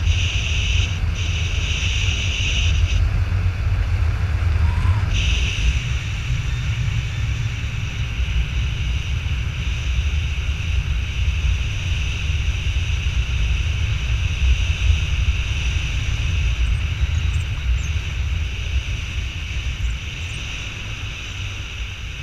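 Wind buffeting the camera microphone in flight under a tandem paramotor wing: a heavy, steady rumble with a hiss over it that drops out for a couple of seconds a few seconds in.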